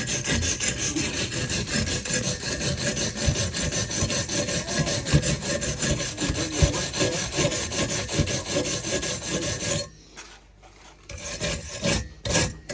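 A stick-welded seam on a thin steel pipe being scrubbed clean of slag by hand, in fast, even back-and-forth scraping strokes. The scraping stops suddenly about ten seconds in, followed by a few light knocks near the end.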